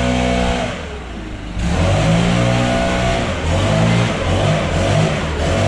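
Gas-powered leaf blower running with a steady rush of air, its engine throttled up and down; it eases off briefly about a second in, then comes back up to full speed.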